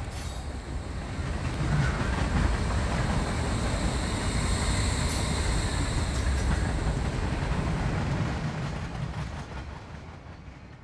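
A deep, steady rumble with a hiss over it, swelling over the first couple of seconds, holding, then fading away over the last three.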